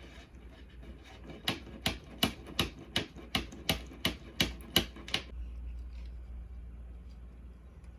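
Hand grease gun being pumped: about eleven sharp, evenly spaced clicks, about three a second, that stop about five seconds in.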